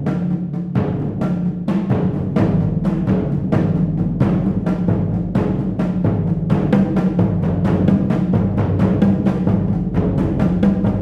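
Percussion trio playing congas, bongos, toms and large concert bass drums, struck with mallets and hands: a steady stream of drum strokes, about four or five a second, over the low ring of the big drums.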